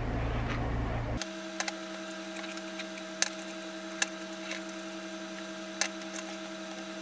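Chopsticks clicking against a ceramic dish while eating, a handful of sharp taps spread over several seconds. Under them runs a steady hum; a louder low hum fills the first second and then cuts off.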